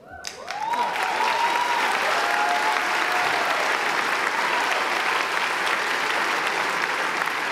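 Large audience applauding and cheering, with a few shouts in the first seconds. The clapping swells within about the first second and then holds steady.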